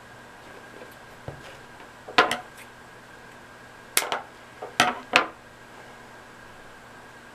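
Small items clacking on a tabletop about two seconds in, then craft scissors snipping about three times a little later: short, sharp clicks.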